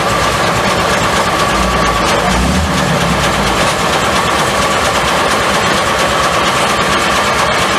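Steam-powered sawmill machinery running steadily, with a constant high whine over a dense mechanical noise, and a deeper rumble swelling briefly about two seconds in.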